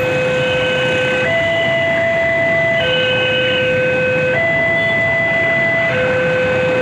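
Railway level-crossing alarm, the new type, sounding a two-tone electronic signal that switches between a higher and a lower tone about every one and a half seconds. Under it, a passenger train passing the crossing with a steady rumble.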